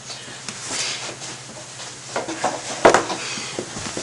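Room tone with a steady low hum and several light knocks and rustles of handling or movement. The sharpest knock comes nearly three seconds in.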